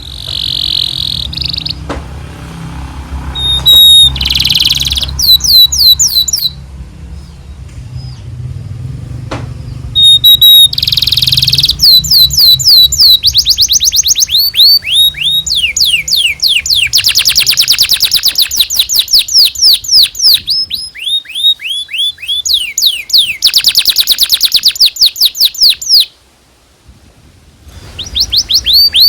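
Domestic canary singing a long, loud song of fast repeated chirps and dense trills, each note a quick downward sweep, broken by a brief pause near the end. A low hum sits under the first part of the song.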